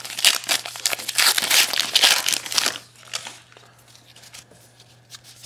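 A baseball card pack's wrapper being torn open and crinkled in the hands, a dense crackling rustle for about three seconds, then a few light rustles as it dies down.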